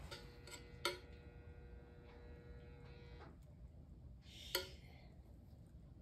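Two faint, sharp clinks of a metal spoon against dishware, about three and a half seconds apart, as marinara sauce is spooned onto fried eggplant slices; a faint thin ringing tone hangs under the first three seconds.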